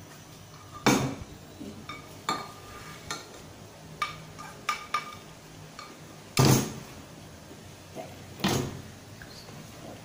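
A spoon scraping and knocking against a frying pan and bowls, heard as a run of separate clinks and knocks. The loudest knock comes about six and a half seconds in.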